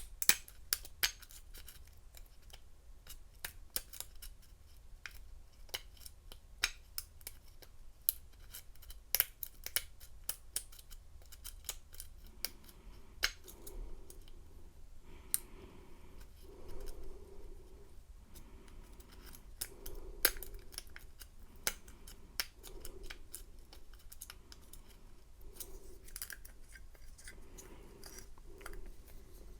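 Steel hook pick clicking and scraping against the pin stack inside a storage disc padlock held under tension, pins being set one at a time: many small, sharp, irregular metallic clicks.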